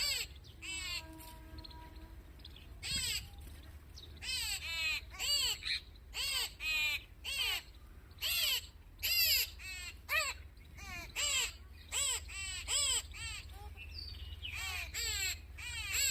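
Birds giving short, harsh, cawing calls over and over, in quick runs of two to four calls about three a second with brief pauses between runs. The first few seconds are quieter.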